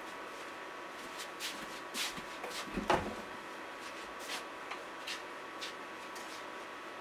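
Scattered light knocks and clicks of things being handled in a small room, the loudest a thud about three seconds in, over a steady faint hum.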